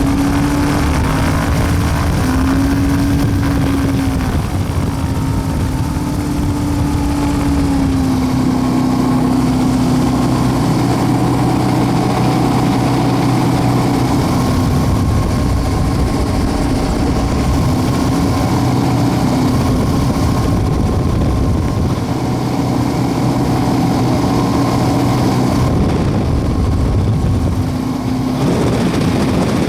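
The WAR Corsair replica's propeller engine running at low taxi power from inside the cockpit, a steady drone that rises and falls slightly in pitch, easing briefly near the end.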